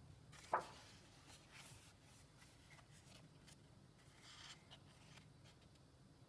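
Colouring-book pages being turned by hand: one sharp paper flap about half a second in, then soft rustling and sliding of paper as the new spread is smoothed flat.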